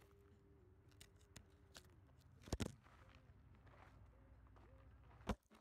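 Camera handling noise over a quiet outdoor background: a few faint clicks, a sharp double knock about two and a half seconds in, and another sharp knock near the end.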